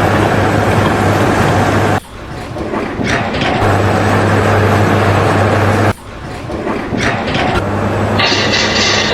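A heavy engine running with a steady low hum amid loud noise, cut off abruptly twice, about two seconds and about six seconds in.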